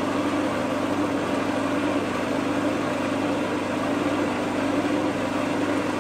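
Food processor motor running steadily at one speed while oil is drizzled in through the feed tube, emulsifying smoked cod's roe into a thickening taramasalata.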